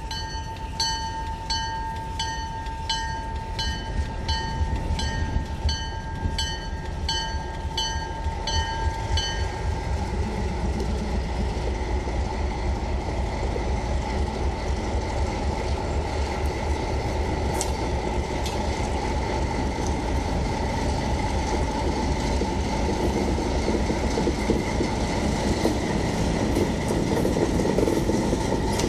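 An Alco RS-18u locomotive's 12-cylinder Alco 251B diesel engine working as it pulls a freight train past, its low rumble growing louder as the locomotive nears. For about the first ten seconds a bell rings about twice a second.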